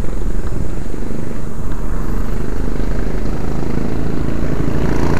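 Steady low rumble of road traffic mixed with wind buffeting the microphone, on a road busy with trucks.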